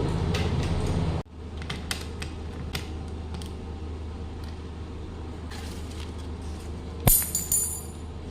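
A steady low hum cuts off abruptly about a second in, leaving quiet room tone with faint clicks. Near the end a metal mailbox is opened: one sharp metallic click, then a brief high jingling rattle.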